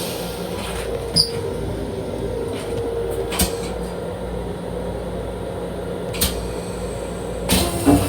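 Inside the restroom of a Long Island Rail Road M7 electric railcar: a steady mechanical hum with a few sharp knocks and clunks of panels or fittings, the last ones near the end.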